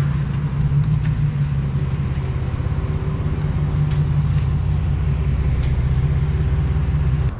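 Chevrolet Silverado pickup's engine running with a steady low rumble as the truck rolls slowly forward.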